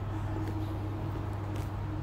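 A steady low hum with a fainter higher tone above it, unchanging throughout, and a couple of faint ticks.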